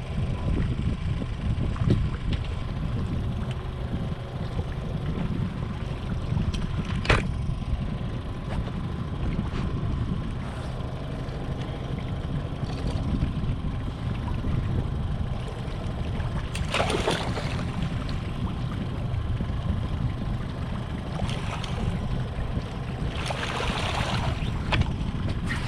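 Boat motor running steadily at trolling speed, a low rumble with wind noise on the microphone. A sharp knock comes about seven seconds in, and two short splashy bursts come later.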